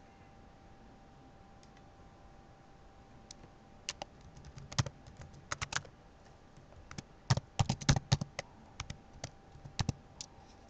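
Computer keyboard typing: irregular runs of keystrokes starting about three seconds in, with short pauses between them, over a faint steady hum.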